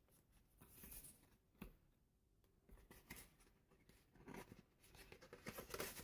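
Faint rustling of a paper envelope being handled and opened, with a sharp click about a second and a half in and busier handling near the end.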